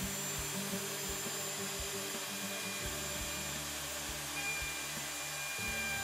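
Electric router running steadily as it cuts a dado in plywood along a clamped template, under background music.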